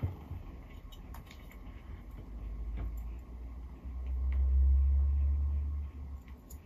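Greek tortoise biting and scraping at a cuttlebone, with faint crunching clicks. A low rumble swells about four seconds in and fades out about two seconds later.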